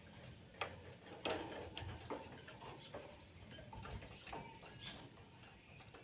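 Quiet, scattered light clicks and knocks, with a few faint short chirps from caged birds.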